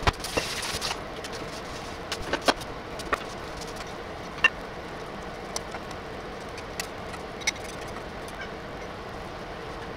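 Steady background hiss with a scattering of light clicks and knocks, some in close pairs, plus a short burst of hissy noise in the first second.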